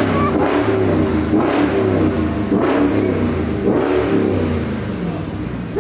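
Mopar V8's muffler-deleted exhaust, revved several times in a row, the pitch rising and falling with each blip. Its owner judges it to sound good.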